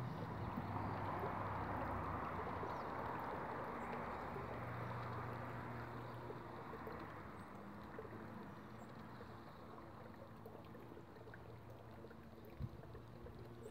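Outdoor background noise: a steady rushing that swells in the first few seconds and slowly fades, over a low engine-like hum.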